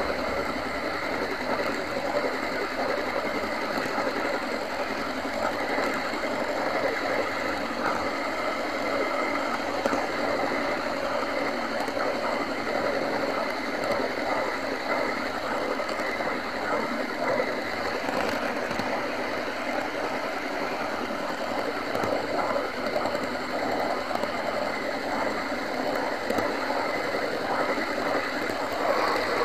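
OO gauge model train running, heard from on board: a steady, busy rattle of small wheels on the track with a faint high hum from its electric motor, never letting up.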